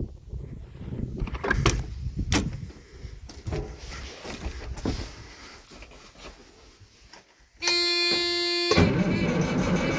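Knocks and clunks, then a steady electronic warning buzzer tone sounding for about a second, like a semi truck's low-air buzzer at key-on. Near the end a loud steady sound starts abruptly.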